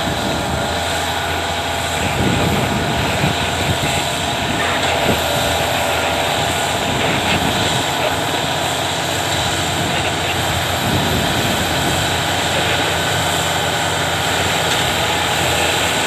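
Caterpillar D8R bulldozer's diesel engine running under load as its blade pushes soft earth, a loud, steady drone.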